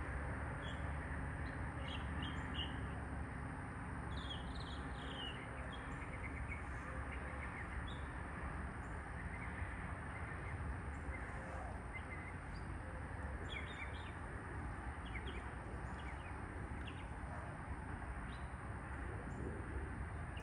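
Small birds chirping in short, scattered calls over a steady low background hum of outdoor noise, with a faint steady high whine throughout.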